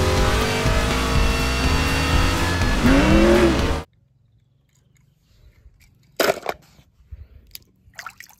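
Race car engines running at speed from an animated stock-car racing clip, steady for about four seconds and cutting off suddenly. About two seconds later come a few small splashes and drips as a die-cast toy car is dipped into water.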